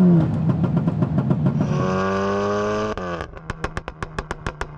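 Volkswagen Golf 8 R's turbocharged 2.0-litre four-cylinder worked hard in race mode: the revs drop with a crackle, climb again, then about three seconds in the throttle is lifted and the exhaust lets off a rapid string of sharp pops and bangs on the overrun, the effect of its Stage 2 remap.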